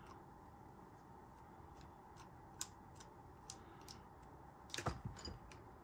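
Faint scattered clicks of a screwdriver and small metal parts as the front screw is backed out of a Crosman 157 air pistol's lower, with a short run of louder clicks about five seconds in.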